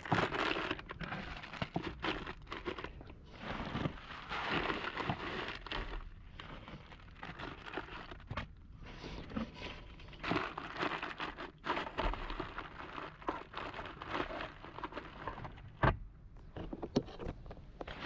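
Close-up rustling with scattered small clicks and knocks as hands work around the plastic trim of a car's footwell, with one sharper click near the end.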